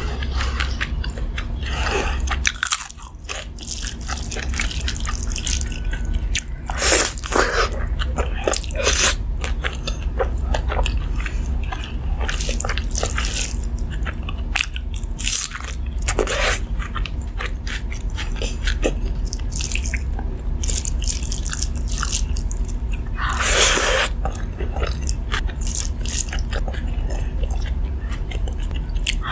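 Close-miked eating: crisp crunchy bites and chewing of a meal with fried sides, papad and raw onion, with many sharp crackles and a louder crunch about three-quarters of the way through. A steady low hum runs underneath.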